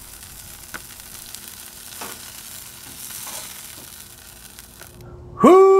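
Chicken wings sizzling on a hot steel griddle top while tongs lift the last pieces off, with a couple of light taps of the tongs on the plate. Near the end a loud held tone cuts in suddenly.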